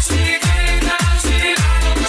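Instrumental dance music from a DJ mix: a deep bass drum whose pitch drops sharply on each hit, about twice a second, over sustained bass notes and chords.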